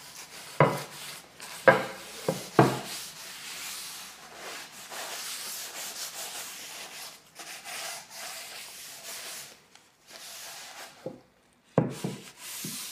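Paper towel rubbing canola oil into a red ironwood cutting board in back-and-forth strokes, with a few louder strokes in the first three seconds. The rubbing stops briefly near the end, then there is a louder handling sound as the board is lifted.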